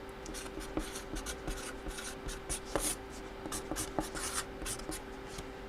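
Faint scratching and small irregular taps from hands working at a tabletop, over a faint steady hum.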